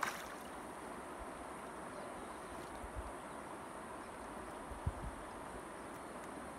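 Steady rush of a shallow river flowing over stones, with a short click right at the start and two low thumps, about three and five seconds in.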